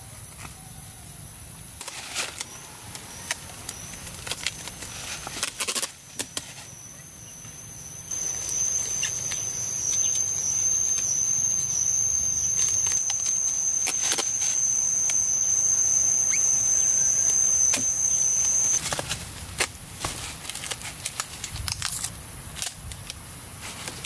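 A single high, thin insect call, wavering at first and then held steady, stopping abruptly near the end, over a constant high hiss. Scattered clicks and rustles of plastic sheeting being handled.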